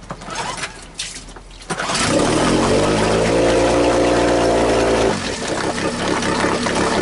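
Tohatsu 9.8 hp four-stroke outboard pull-started cold with the choke fully out, catching on the first pull about two seconds in. It revs up to a high, steady fast idle, then about three seconds later the revs drop abruptly and it settles to a lower steady idle.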